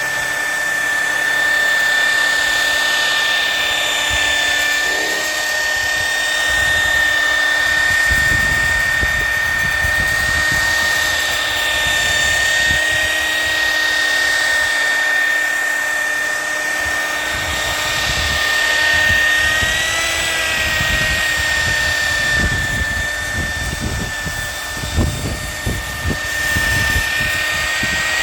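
Electric car polisher running steadily with a constant high motor whine while polish is worked into the car's paint. An uneven low rumble joins in from about eight seconds in.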